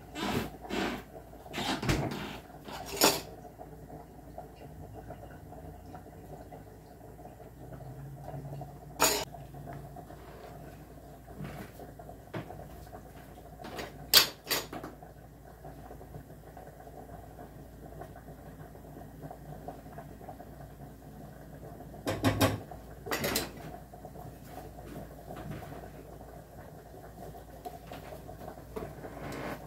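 Knocks and clatter of kitchen things being handled during cleaning: several sharp knocks in the first few seconds, then single knocks spread out with quiet stretches between, and a couple more a little past the middle.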